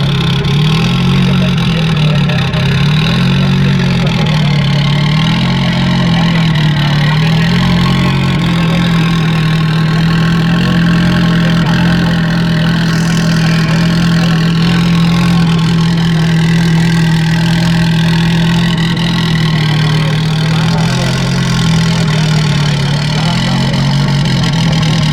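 Renault 5 Turbo 2's turbocharged four-cylinder engine idling steadily. Its speed rises and falls gently for the first few seconds and again near the end, and holds even in between.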